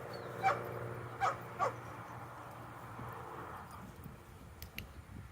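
A dog giving three short, high yips or whines in quick succession, each dropping in pitch, over a steady low hum that fades out a few seconds later.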